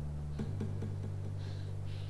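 Low sustained musical drone that shifts to a different pitch about half a second in, with a few faint ticks.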